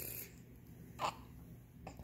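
Quiet room with one brief, soft mouth sound from a young baby about a second in, and a faint click near the end.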